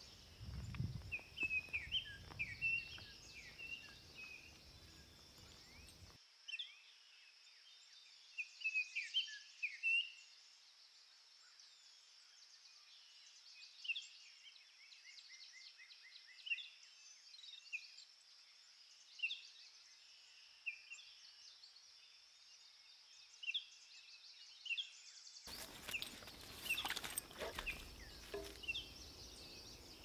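Forest ambience of small songbirds chirping and calling over and over, with a short trill midway and a faint steady high hiss. Footsteps and rustling on the needle-covered forest floor in the first few seconds and again near the end.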